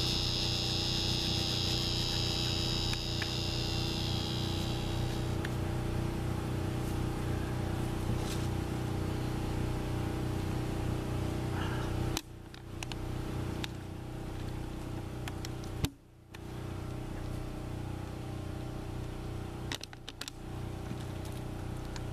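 A steady low mechanical hum holding several even tones, with a high insect buzz over it for about the first five seconds. The hum drops out briefly three times in the second half.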